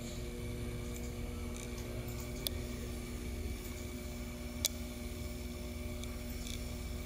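Steady room hum, like a fan or electrical equipment, with a few fixed tones over a low rumble. Two brief sharp clicks come about two and a half seconds in and again about two seconds later.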